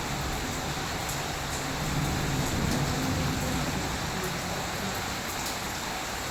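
Steady rain falling, an even hiss of rainwater pouring down and splashing on the ground.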